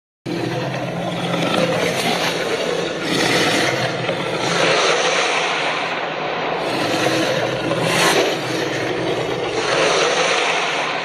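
Arkosaurus dinosaur-monster sound effect: a harsh, rasping growl that starts abruptly and goes on without a break, swelling and easing every one to two seconds.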